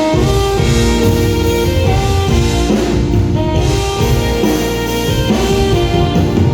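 Live rock band playing an instrumental passage: saxophone and guitar over drums and bass, with the full band crashing in right at the start.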